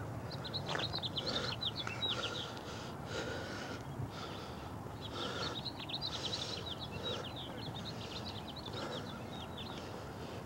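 A songbird singing two runs of rapid, quick down-slurred chirps, one early and a longer one from about five seconds in. Under it, soft footsteps on a paved path at about one step a second.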